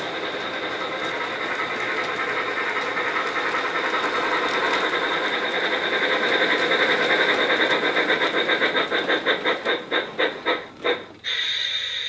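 Bachmann G-scale Thomas the Tank Engine model locomotive running along its track with a steady mechanical whir and a constant high whine. Near the end a rhythmic beat slows until the engine stops, and music begins.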